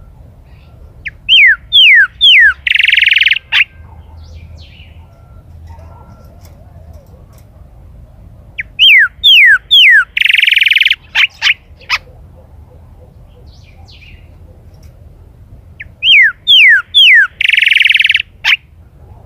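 Chalchalero singing three loud song phrases several seconds apart. Each phrase is three or four quick downslurred whistles followed by a longer harsh, buzzy note and a few short clicks.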